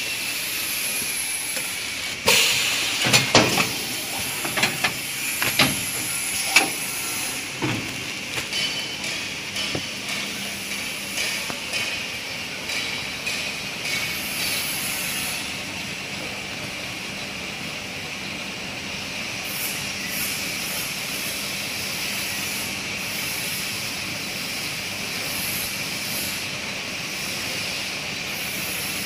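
XY-AI-653D double-layer 4-roll kitchen towel bundle packing machine running: a burst of sharp mechanical clacks and knocks over the first several seconds, then a steady hiss and faint hum.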